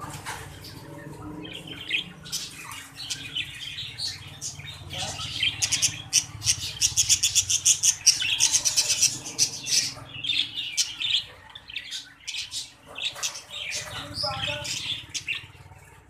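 Budgerigars chattering and chirping, with a fast run of clicking notes in the middle, over a steady low hum.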